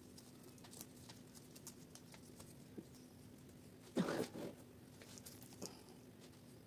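Soft rustling and small clicks of bougainvillea leaves and stems being handled against a coir-covered pole, with one louder brief rustle about four seconds in.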